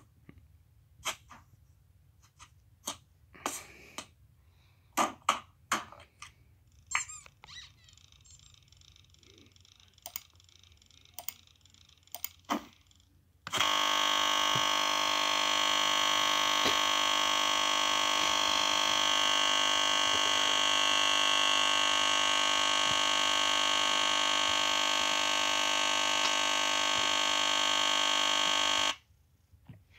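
An ASUS X-series laptop's speakers give scattered clicks and short sounds, then about halfway through lock into a loud, steady buzzing drone that holds for about fifteen seconds and cuts off abruptly. The drone is the audio stuck in a loop as Windows crashes to a blue screen after its critical start-up process is ended.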